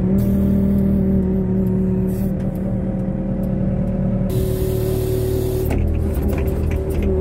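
Diesel engine of a Merlo telehandler running steadily, heard from inside the cab. A high hiss joins about four seconds in for a second and a half, and a few light knocks follow near the end.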